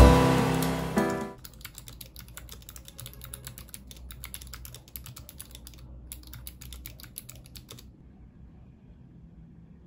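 Fast typing on a Vissles LP85 low-profile optical-mechanical keyboard: a quick, irregular patter of key clicks that pauses briefly and stops a couple of seconds before the end. Music fades out in the first second or so, before the typing is heard.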